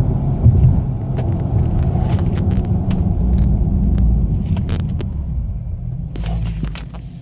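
Low road and engine rumble inside the cabin of a Hemi V8 Dodge Charger braking hard from 60 mph to a stop, fading toward the end as the car slows. Scattered short clicks and knocks sound through the stop.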